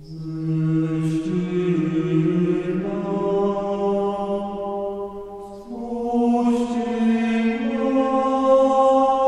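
Slow background music of chant-like voices holding long notes, with the chord shifting every couple of seconds.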